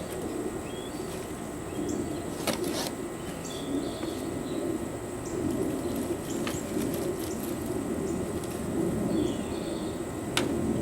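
Hands rummaging and digging through loose soil in a container while hunting for potatoes: a steady rustling scrape with a few sharp clicks.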